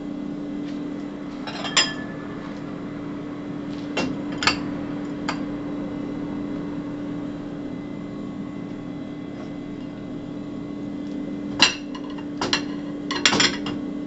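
Ceramic bowls and dishes knocking and clinking against a dishwasher's wire rack as they are set in: a few single knocks in the first half, then a quick cluster near the end, the loudest just before it. A steady low hum runs underneath.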